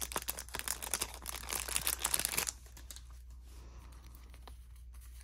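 A packet of book stickers crinkling and rustling as it is handled, dense for about two and a half seconds, then dropping to a few faint clicks.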